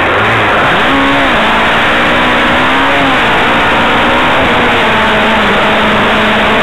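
Single-seater racing car's engine running hard at high revs, heard loud from on board. Its pitch rises and falls about a second in, then holds fairly steady with small dips.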